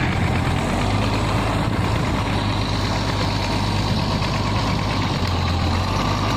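Hino diesel engine of a wooden river tugboat running steadily with a deep, even hum while it tows a large log.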